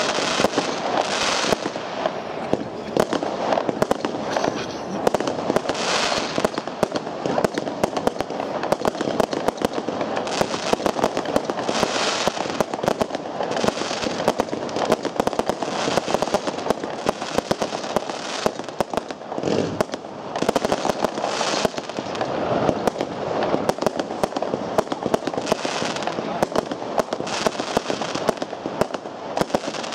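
Sweetlake Climax fireworks cake firing a long, unbroken run of shots: many sharp bangs in quick succession, mixed with crackling breaks.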